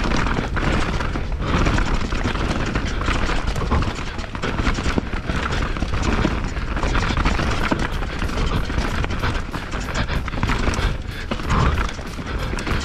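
YT Jeffsy enduro mountain bike descending a rough downhill trail at speed: a steady rumble of tyres and wind on the microphone, with constant clattering and knocking from the bike over the bumps.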